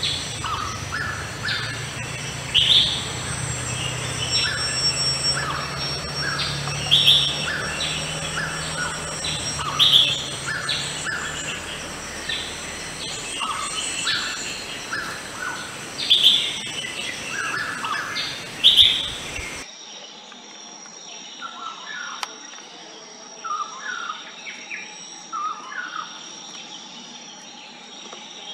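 Wild forest birds calling: loud, short, high calls every two to three seconds over quieter, lower notes. About two-thirds through the sound cuts to a fainter stretch where the calls go on more quietly.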